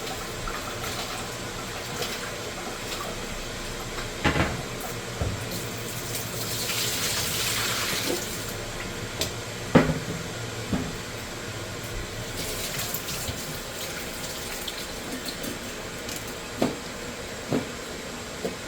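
Kitchen tap running into a sink as goat meat is rinsed off after its vinegar wash, the water swelling louder for a couple of seconds in the middle. Scattered knocks sound through it, the loudest about ten seconds in.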